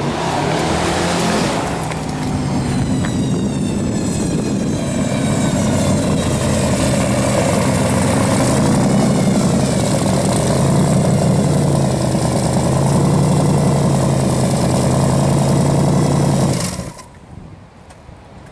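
A supercharged, twin-turbocharged 468 cubic inch big-block Chevrolet V8 in a 1969 Camaro running loud and steady as the car rolls past at low speed, with a whine wavering up and down above the engine note. The engine sound cuts off abruptly near the end, leaving only a quiet background.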